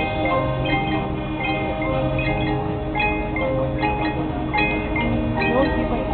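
Marching band music carried by mallet percussion: marimba, xylophone and glockenspiel notes struck and ringing over held lower notes.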